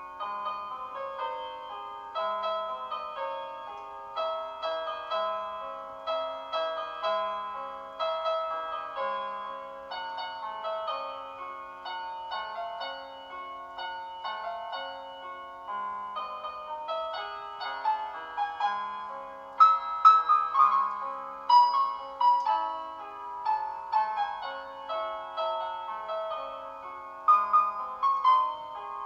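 Background piano music: a gentle melody of single struck notes, turning to quicker, louder runs from about two-thirds of the way in.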